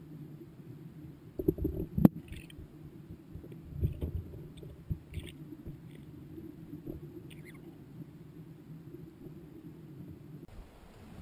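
Muffled underwater sound picked up by a submerged camera in a rock pool: a steady low rumble with a few sharp knocks and clicks, the loudest about two seconds in.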